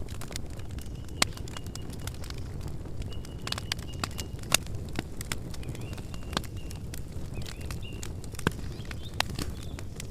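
Wood campfire burning with a steady low rumble and frequent sharp crackles and pops, the loudest about a second in, near the middle and near the end. A faint high note comes and goes a few times.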